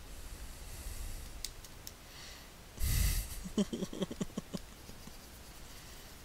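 A person's sharp snort of breath into a close microphone about three seconds in, followed by a second of short, choppy chuckles.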